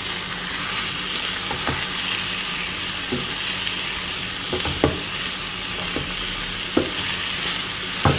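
Chicken pieces in masala sizzling in a kadai as they are stirred with a spatula to coat them in the fried masala: a steady frying hiss, with a few knocks of the spatula against the pan.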